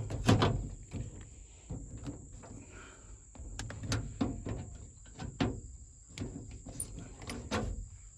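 Irregular clicks and knocks of small metal parts being handled: a truck's outside door handle and lock assembly being oiled and put back together.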